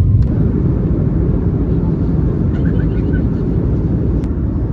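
Steady low rumble of a vehicle in motion, heard from inside it.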